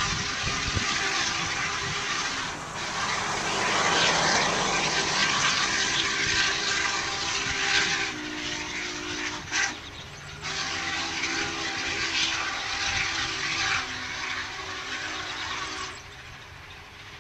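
Union Pacific 844, a 4-8-4 steam locomotive, and its passenger train running at a distance: a steady rushing noise with a low hum of several notes through it. The sound dips briefly about ten seconds in and falls off near the end as the train moves away.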